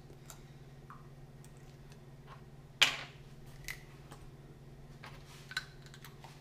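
Quiet kitchen room tone with a steady low hum, broken by a few light clicks and knocks from handling things at the counter; one sharp click about three seconds in is the loudest.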